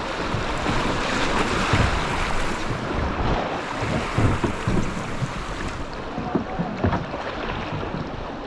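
Fast river water rushing and splashing around a two-person canoe as it is paddled through a small rapid, with paddle strokes in the water and wind buffeting the microphone.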